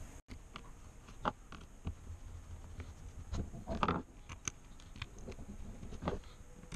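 Irregular small clicks and scrapes of hands and a screwdriver working on a JBL Charge 2 speaker's plastic housing as its driver is screwed back in.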